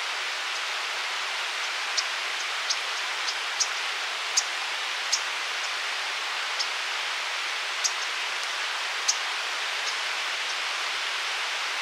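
Steady rush of flowing river water, with about a dozen short, high ticks scattered irregularly through it.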